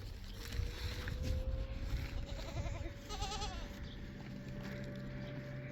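Small livestock bleating: one wavering call about halfway through, over a faint steady tone and low rumbling.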